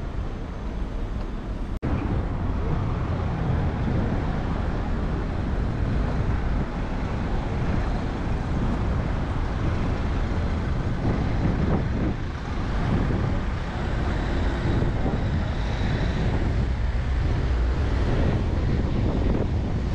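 Wind buffeting the action camera's microphone as a steady rough rumble over outdoor street noise, cutting out for an instant about two seconds in.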